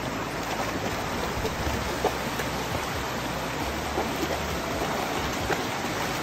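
Shallow, rocky stream rushing steadily, with a few small splashes as a large dog wades through the current.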